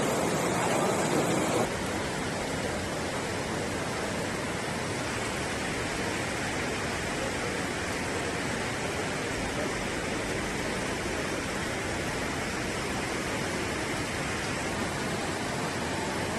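Muddy floodwater from a landslide rushing in a torrent: a steady, even rush of water. It is fuller and louder for about the first second and a half, then drops to a flatter, steady hiss.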